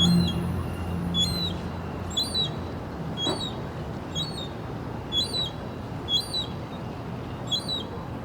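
A bird repeating one short, high call about once a second, each call rising and then dropping in pitch, over a steady hiss.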